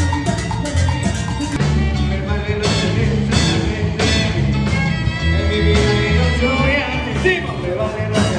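Live dance band playing loudly, with bass notes, drums, electric guitar and saxophones, and a man singing over it.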